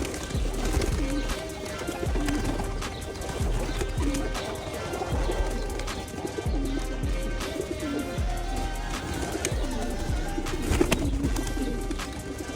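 Homing pigeons cooing repeatedly, with many short sharp taps among the flock, over background music.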